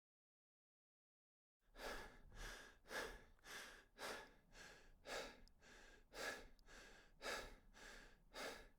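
A person breathing hard and fast in rhythmic strokes, about two a second, starting after a second and a half of dead silence.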